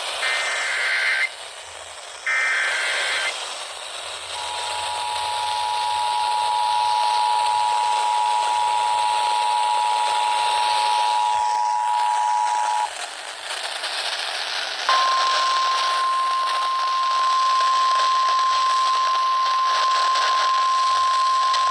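Emergency alert tones over a hissy radio signal. Two short, shrill, warbling SAME digital header bursts come in the first few seconds, then the two-tone EAS attention signal is held for about eight seconds. After a brief gap, a single steady NOAA Weather Radio warning tone starts and is still sounding at the end, announcing a new severe thunderstorm warning.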